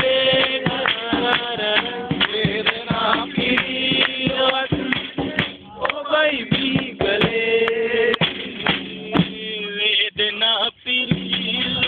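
A song with a male voice singing over instrumental backing.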